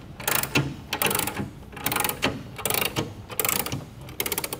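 Socket ratchet wrench clicking in short repeated strokes, about six bursts of rapid clicks, as it turns the rear axle adjuster bolt on a Harley-Davidson dresser to square up the wheel.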